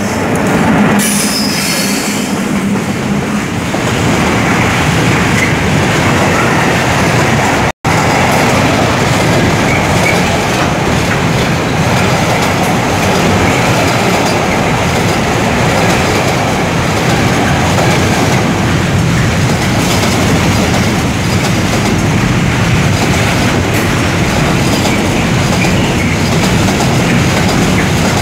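Class 461 electric locomotive passing close by, with a low hum for the first few seconds, followed by a long train of container wagons rolling past: steady, loud noise of wheels on the rails. The sound cuts out for an instant about eight seconds in.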